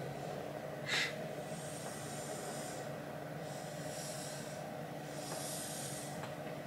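Plastic ouija planchette sliding across the board under the fingertips: soft, intermittent scraping hiss in several short strokes, with one brief sharper scrape about a second in.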